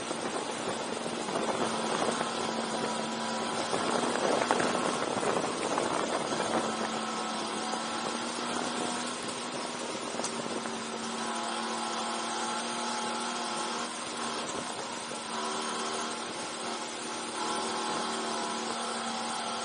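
Go-kart engine running steadily under way, heard from on board the kart, with a louder, rougher stretch of a few seconds near the start.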